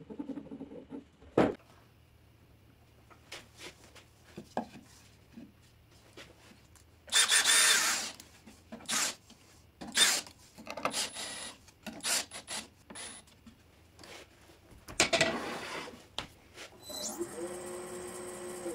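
Cordless drill running in several short bursts as it bores into a wooden sphere held on a lathe. Near the end the wood lathe starts and runs with a steady tone.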